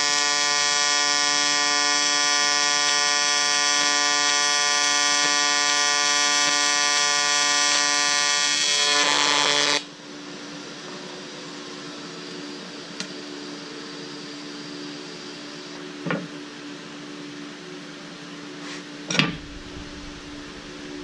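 AC TIG welding arc on aluminum giving a steady, rich buzz. The aluminum is freshly wire-brushed and acetone-cleaned, with the AC balance set to 60. The arc cuts off sharply about ten seconds in, leaving a low hum broken by a couple of short knocks.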